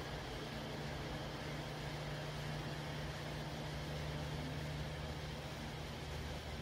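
A steady low hum with an even hiss behind it.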